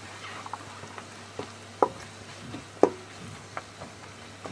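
Steel spatula scraping and knocking against a stainless steel kadai while stirring spice powder into fried onions and peanuts, with a few sharp clinks, the loudest about two and three seconds in. A low frying sizzle from the oil on a low flame underneath.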